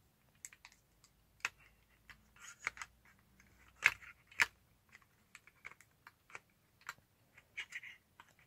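Irregular plastic clicks and knocks from a compact camera being handled and fitted onto a tripod's plastic quick-release head and latch. The loudest knock comes about four seconds in.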